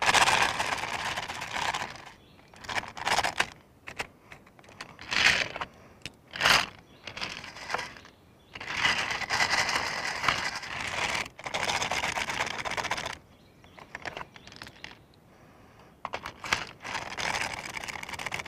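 .22 LR rimfire cartridges rattling and clicking against each other inside the hopper of a handheld magazine loader as it is tilted and shaken to line the rounds up and drop them into the magazine. Two longer bouts of dense rattling, one at the start and a longer one around the middle, with single clicks between.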